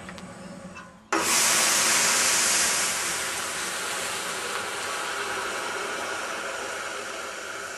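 Burning oil erupting as water hits it and flashes to steam: a sudden loud rushing whoosh about a second in, loudest for a second or two, then easing into a long fading hiss.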